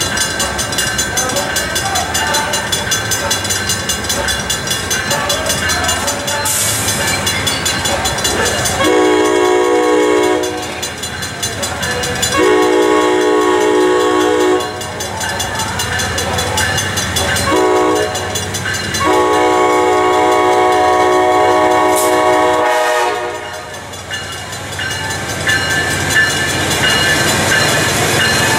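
A passenger locomotive's air horn sounds the grade-crossing warning, long, long, short, long, while the crossing bell rings underneath. Near the end the train rumbles in close by.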